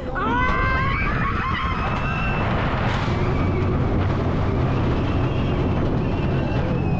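Ride noise aboard the SheiKra steel dive coaster: a steady rush of wind on the microphone over the low rumble of the train on the track. In the first two seconds there is a high, wavering wail.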